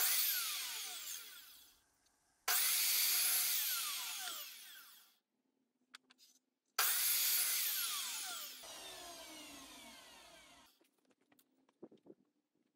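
Electric mitre saw cutting angled ends on small pieces of timber: three runs, each starting abruptly and fading out with a falling whine as the blade spins down. A few light knocks of wood follow near the end.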